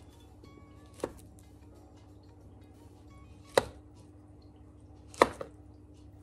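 Kitchen knife slicing a peeled banana on a plastic cutting board: three sharp knocks of the blade hitting the board, about a second in, midway, and near the end, the last two the loudest.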